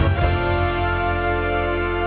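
Background music: a few quick notes, then a chord held steadily over a constant bass.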